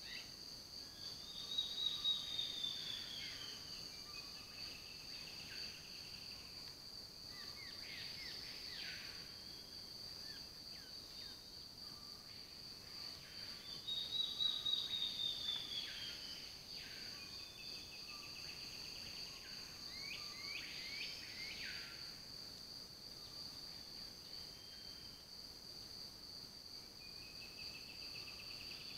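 Steady high insect drone with birds singing over it: arching, falling phrases and quick upward-sweeping notes, the sequence coming round about every twelve seconds.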